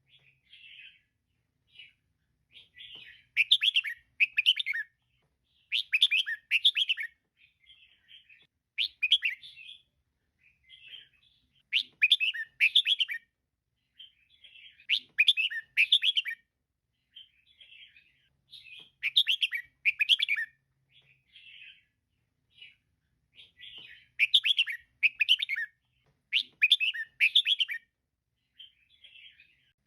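Female red-whiskered bulbul calling: short bursts of quick chirping notes repeating about every three seconds, louder phrases alternating with softer ones.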